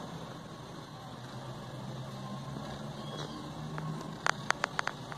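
A steady low hum, with a quick run of about five sharp clicks about four seconds in, as the opened drone's plastic body and circuit board are handled.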